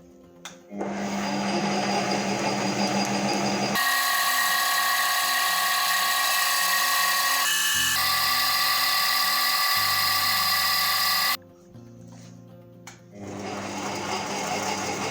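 A metal-cutting machine tool, lathe or milling machine, cutting steel for a key blank. A rough cutting noise gives way after a few seconds to a loud, steady high whine that cuts off abruptly near the end, over background music.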